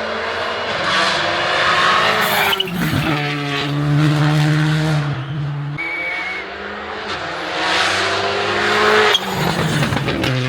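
World Rally Championship car engine revving hard at high revs, in two similar cycles: a rough, noisy stretch followed by a sudden change about a quarter and nine tenths of the way in to a steady, held high-revs note lasting a few seconds.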